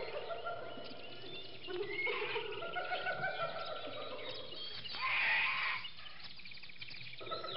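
A layered bed of animal calls and bird chirps: held calls and short chirps over dense ticking, with a louder call about five seconds in. The pattern starts over near the end.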